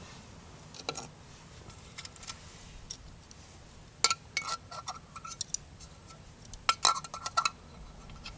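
Metal cookware and utensils clinking: sharp clinks, each with a short metallic ring, in four short clusters, about a second in, around two seconds, from about four to five seconds, and again near seven seconds.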